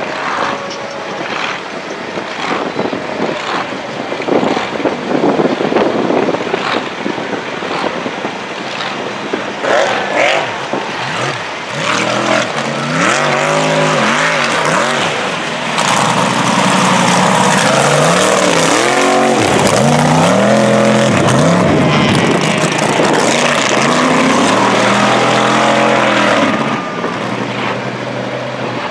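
Mega truck engine racing at high throttle. The pitch climbs and falls repeatedly as the driver revs through the course, and it is loudest over the middle stretch before easing off near the end.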